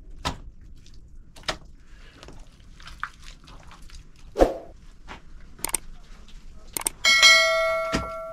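Scattered slaps and thuds of wet mud and stones being packed by hand onto a clay oven's base. About seven seconds in, a bright bell-like chime from a subscribe-button animation rings out and fades over about a second.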